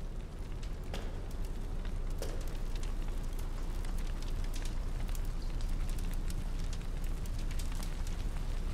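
Open fire crackling: a steady stream of small irregular pops and snaps over a low, continuous rumble.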